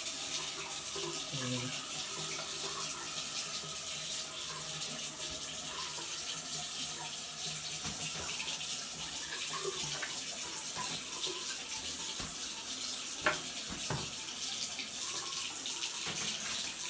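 Water running steadily from the basin tap into the sink and down the drain. A single sharp knock about thirteen seconds in.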